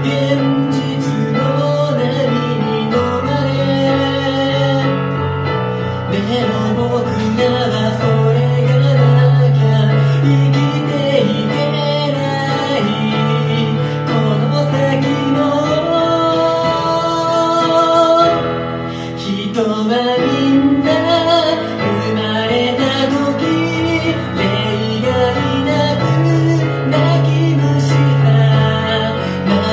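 A man singing while he plays a Yamaha digital piano. Long held bass notes change every few seconds under chords, and the voice carries the melody above them.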